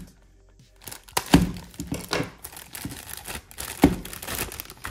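Crinkling and tearing of a plastic toy bag while sticky tape is worked off it, after a brief near-silence. Two sharp knocks, about a second in and again near the end, are the loudest sounds.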